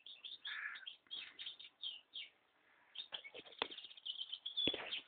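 A small finch chirping in quick, short, repeated calls, with a few sharp taps partway through and a louder knock near the end.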